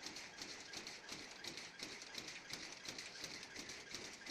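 Expanded metal machine slitting and stretching sheet metal, a faint, quick, regular clicking of repeated strokes over a steady hiss.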